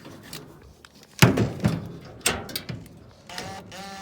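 Hand tool knocking and clanking against metal inside a gas dryer's cabinet while a nut driver is fitted to the igniter's mounting screw: a few sharp knocks, the loudest about a second in. A short pitched sound follows near the end.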